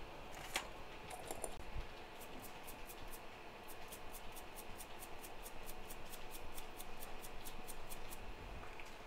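Light, even ticking at about five ticks a second, starting about two seconds in and stopping near the end, over a faint steady hum.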